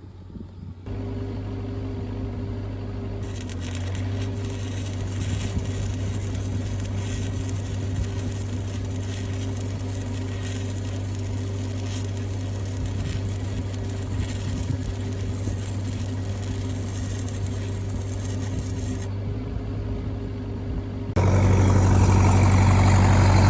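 An engine running steadily: a low drone with a rough, crackly hiss over it. It gets markedly louder about 21 seconds in.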